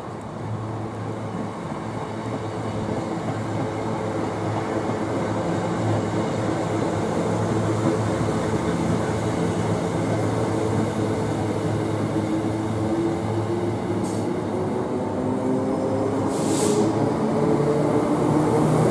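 Electric multiple unit pulling into the platform and slowing, growing louder as it comes in, with a steady low hum and a motor whine that falls in pitch near the end. A brief hiss about two-thirds of the way through.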